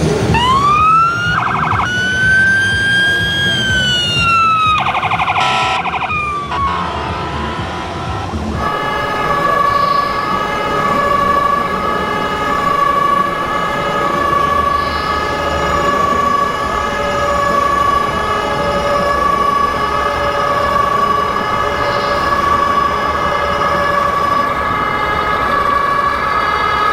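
Sirens from RC model fire truck sound modules: first a wailing siren sweeping up and down in pitch, broken twice by a short horn blast, then, about a third of the way in, a German two-tone fire siren alternating steadily between two notes.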